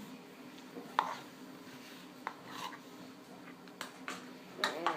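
Homemade slime being stirred in a container, with a few light clicks and taps of the stirring utensil against the container's sides.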